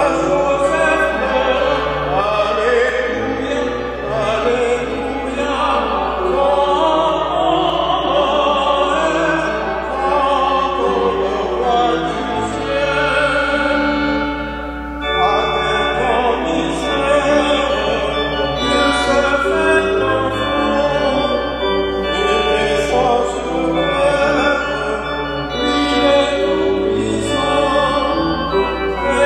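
Classical sacred vocal music: voices singing over orchestral accompaniment, with a short break about halfway through before the music goes on.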